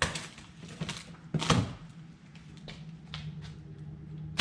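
Cardboard boxes and packaging being handled while parts are unpacked: a string of sharp knocks and rustles, the loudest thud about a second and a half in.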